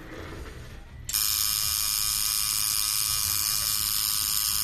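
Electric tattoo machine switched on about a second in, then running with a steady, high-pitched buzz as the tattoo is started.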